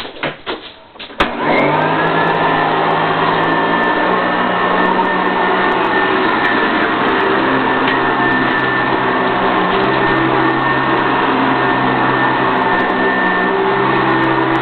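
Euroclean 7.0 Professional Series vacuum cleaner: a few knocks, then about a second in the motor switches on and runs steadily at full speed with a high whine.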